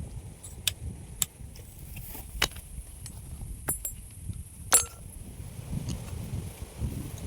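Scattered sharp clicks and clinks, irregular and about one a second with a louder one near the middle, like small objects being handled, over a low rumble.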